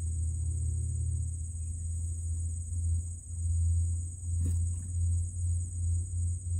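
A steady, high-pitched chorus of crickets, with a loud low hum underneath that starts to throb in a quick pulse about halfway through.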